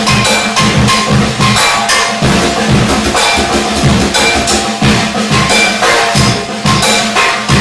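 Rhythmic percussion music: a steady beat of drum-like and wood-block-like strikes over a held low note.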